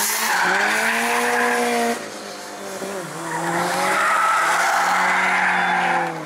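A drift car's engine running at high revs while its tyres squeal through a slide. About two seconds in, the engine note drops and the squeal stops for about a second, then the engine picks up again and the tyres squeal through another slide.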